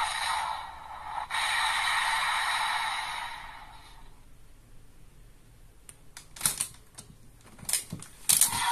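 A Bandai DX Desire Driver toy belt's electronic sound effect plays and dies away over the first few seconds. Then come sharp plastic clicks and clacks as the driver is gripped and turned around on its stand, the loudest about halfway through the clicking and near the end.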